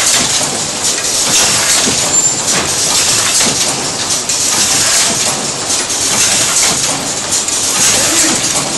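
End-load cartoner packaging line running: the bottle-turning station, conveyor and carton-loading mechanism make a steady, dense clatter of rapid clicks over a constant hiss.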